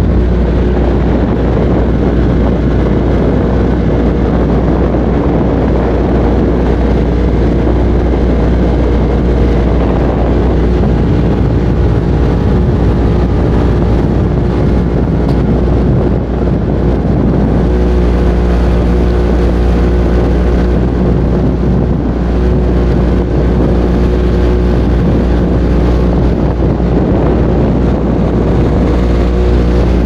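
Speedboat engine running steadily at speed, a constant low drone, with wind buffeting the microphone.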